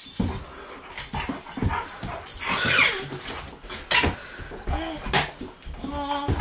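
Dogs yipping and barking in many short, sharp bursts, with a few arching whines in the second half.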